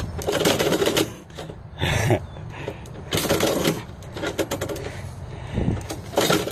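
Metal mail-slot flap rattling and clattering in three short bursts as letters are pushed in through the slot and a cat's paw shoves them back out.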